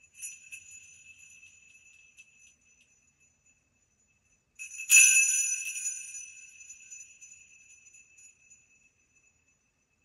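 Steel sleigh bells jingling softly just after the start and fading, then shaken sharply once about five seconds in, louder, their bright ringing dying away over the next few seconds.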